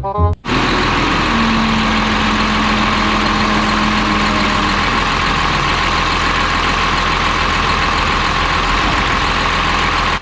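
Mining truck engine running steadily at a constant pitch, a dense even drone with a low rumble. It cuts in sharply about half a second in and stops abruptly at the end.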